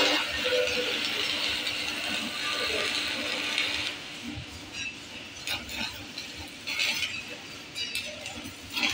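Stick-welding (shielded metal arc) electrode arc on steel plate, crackling and hissing steadily for about four seconds, then breaking into short separate crackles and pops.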